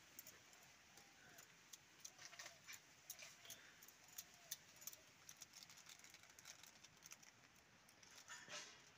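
Near silence: faint scattered clicks and ticks, with a few faint short chirping calls in the middle.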